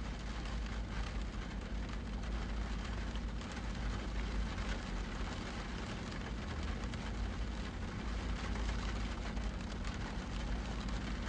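Steady rainfall, a constant patter-like hiss over a low, continuous rumble.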